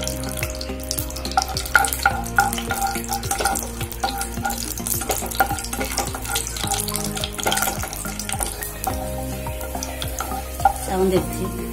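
Cashew nuts frying in hot ghee with a steady sizzle and crackle, stirred with a wooden spatula that scrapes and taps against the nonstick pan.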